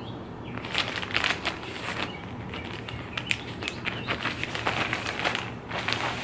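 Packaging crinkling and rustling in quick irregular bursts as a parcel is opened and a knit garment is pulled out and handled.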